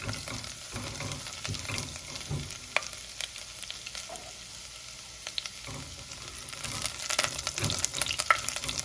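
Chopped ginger frying in hot coconut oil with mustard and fenugreek seeds: a steady sizzle with scattered crackles, which get busier and louder about seven seconds in.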